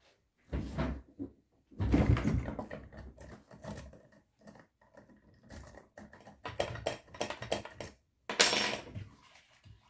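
Metal lock picks and a tension wrench being handled and inserted into a Miwa lock cylinder held in a vise: scattered bursts of clicking, scraping and clinking metal, the loudest near the end.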